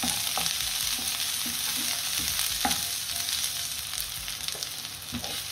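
Sliced red onion and garlic sizzling in hot oil in a non-stick wok, stirred with a wooden spatula that scrapes and taps against the pan now and then.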